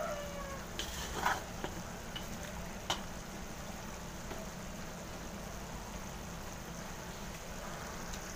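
Pork picadillo simmering in its sauce in a wide pan: a faint, steady bubbling sizzle, with a few soft clicks in the first three seconds.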